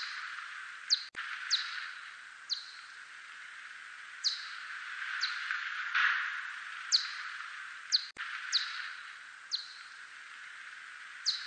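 Echolocation calls of a 대륙쇠큰수염박쥐 (a Myotis whiskered bat), made audible: short chirps that sweep down in pitch, about one a second at uneven spacing, over a steady hiss that swells and fades. Two sharp clicks, about a second in and near the end.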